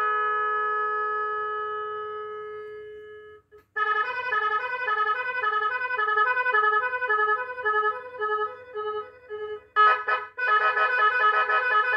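Electronic telolet bus horn sounding through its loudspeaker. A long, steady ship-horn tone fades away over the first three seconds. After a brief gap, a quick bouncing telolet melody of alternating notes plays, and near the end a louder telolet pattern starts.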